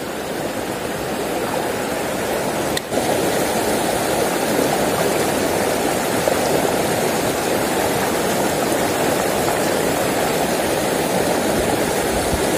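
Shallow rocky river rushing over boulders through a small riffle: a steady rush of running water, with a brief break about three seconds in.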